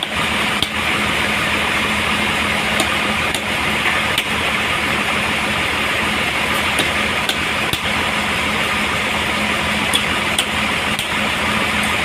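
Sawmill running steadily: a constant motor hum under an even hiss, with faint ticks now and then.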